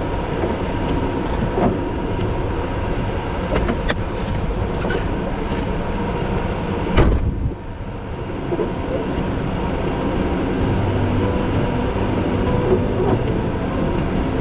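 Steady, dense rumble of a storm-force blizzard wind around a stopped car. One sharp thump comes about seven seconds in, and the rumble dips briefly after it.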